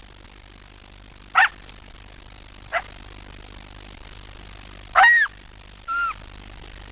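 An animal giving short, high-pitched calls, four in all, each rising and then falling in pitch, spaced one to two seconds apart.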